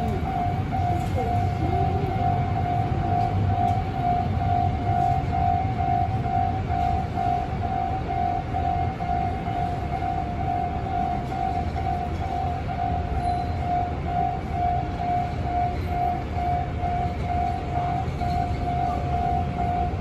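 Japanese railway level-crossing warning alarm ringing steadily, a repeated ding about twice a second, signalling that a train is approaching and the crossing is closed. A low, steady rumble of city traffic runs underneath.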